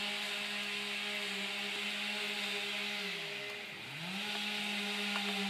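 Two-stroke chainsaw running at full throttle, dropping toward idle a little past three seconds in and revving back up about a second later.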